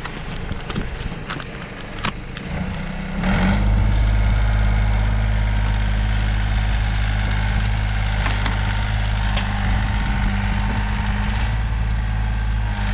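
Bobcat compact tractor's diesel engine picking up revs about three seconds in, then running steadily at high revs while it works logs out of the woods. Before that, footsteps crunch and twigs snap through snowy brush.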